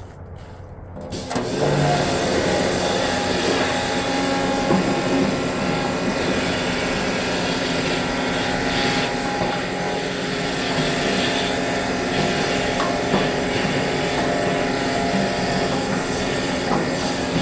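Pressure washer starting up about a second in and running steadily, its high-pressure water stream flushing loose rust out of the tractor's gas tank.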